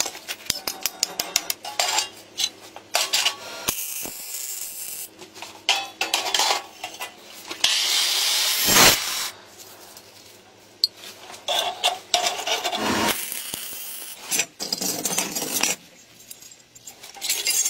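Metalworking sounds in quick succession: rapid hammer strikes on a chisel cutting sheet metal in a vise for the first second or two, then scattered metal knocks and scrapes. About eight seconds in, an abrasive cut-off disc cuts steel tube in a loud rasping burst of about a second.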